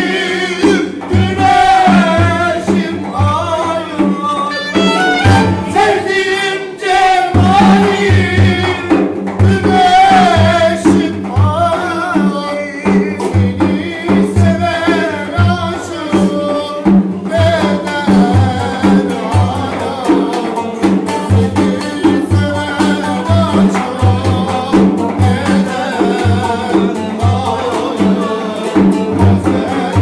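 Turkish regional dance tune (oyun havası) played live: men singing over a strummed long-necked plucked lute and a steady beat on a large frame drum. The drum drops out briefly about seven seconds in. The singing gives way to the instruments alone about halfway through.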